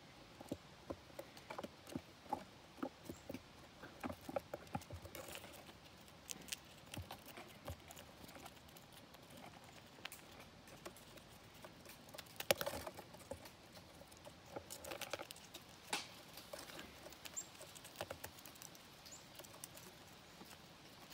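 Gray squirrel gnawing and cracking peanut shells close up: irregular small crunching clicks, with a sharper crack about halfway through.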